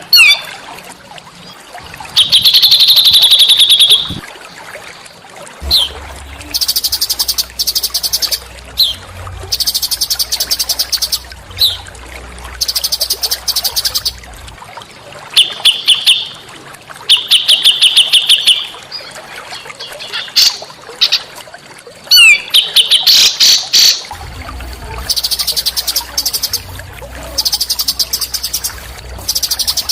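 Small songbird's recorded song, used as training song for caged songbirds: loud bursts of very fast, high-pitched trills lasting a second or two each, repeated with short gaps and broken by quick sharp down-slurred notes.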